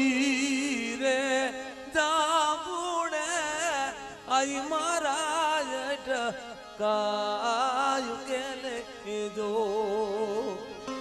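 Gujarati devotional folk music: a wavering melodic lead with heavy vibrato over a steady low drone. Phrases break off briefly about two, four and seven seconds in.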